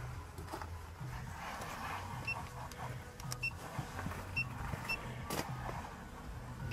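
Electronic keypad deadbolt beeping as its code is keyed in: about five short, high beeps at irregular intervals, one for each button pressed.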